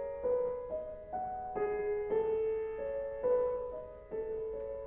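Solo piano music: a slow classical melody, a new note struck about twice a second and left to ring over the held lower notes.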